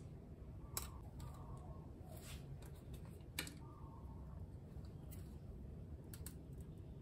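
A metal spoon clinking and scraping against a stainless steel bowl and a glass jar while scooping mayonnaise. It gives a few light, sharp clicks, the loudest about three and a half seconds in.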